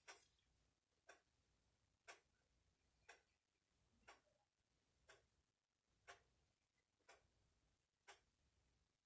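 Faint ticking of a clock, one tick each second, in a quiet room.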